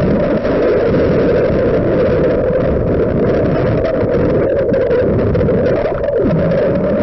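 Steady rushing noise of water and a running boat motor, picked up by a camera held underwater.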